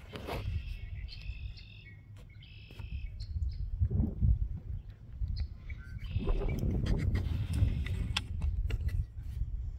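A bird's chirping calls, about four short phrases within a few seconds, over a low rumble of wind buffeting the microphone.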